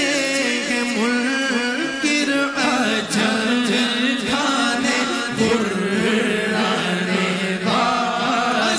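A man singing an Urdu naat into a microphone, in long, held, wavering melodic lines.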